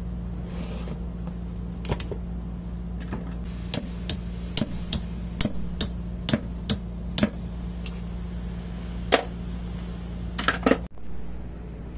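Sharp metal-on-metal taps from hand tools working on a crane winch's hydraulic motor as it is fitted to the gearbox, a run of about two taps a second for a few seconds, then a few more near the end, over a steady low hum.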